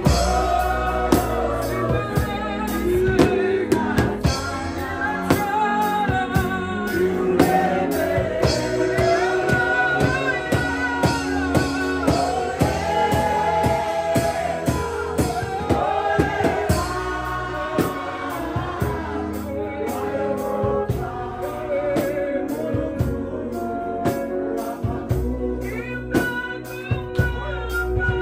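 Live gospel praise music: voices singing a melody over an electronic keyboard and electric bass, with a steady beat running underneath.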